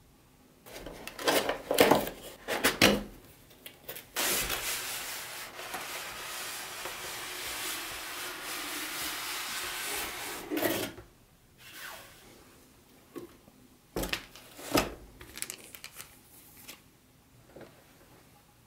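Cardboard packaging being handled: a few knocks and rubs, then about six seconds of steady rubbing noise, and two sharp knocks later on.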